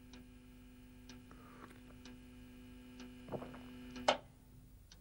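Clock ticking faintly about once a second over a low steady hum that stops just before the end, with a couple of soft knocks of crockery being handled at the kitchen counter near the end.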